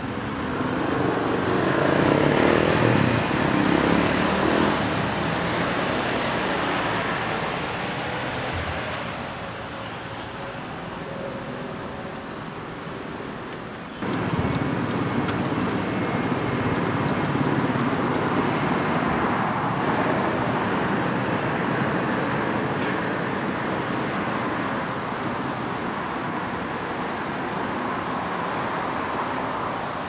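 Road traffic noise, vehicles running past. The noise swells in the first few seconds, then jumps up abruptly about halfway through and stays steady.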